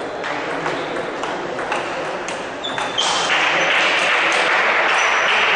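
Table tennis ball clicking off bats and table during a rally, a sharp tick every half second or so. About three seconds in, a louder steady rush of noise takes over.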